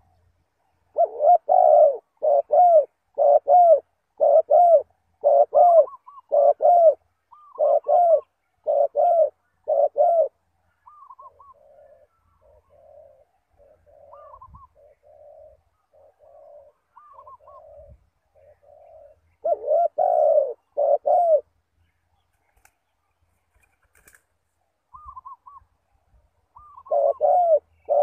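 Spotted dove cooing: a run of loud, low coos about one a second for the first ten seconds, then softer cooing, with loud coos again about twenty seconds in and near the end.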